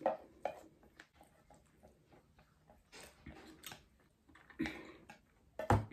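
Close-up eating sounds: noodles being slurped and chewed, with small clicks of wooden chopsticks against a metal pot, and a louder knock near the end.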